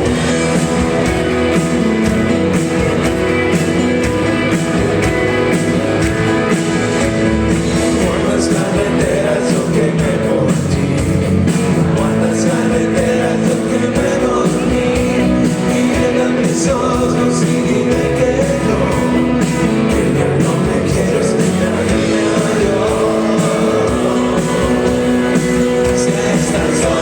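Rock band playing live, a steady, loud full-band sound with guitar in the mix.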